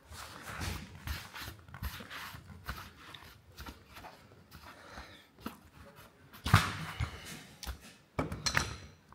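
Hand work on a brake caliper's dust boot: irregular scraping, rubbing and knocks of tools and metal parts, with one louder knock about two-thirds of the way through and a few sharp clicks near the end.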